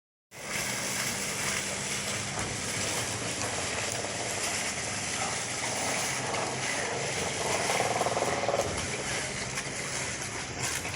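Water splashing steadily, with a faint low hum underneath and a louder stretch around the eighth second.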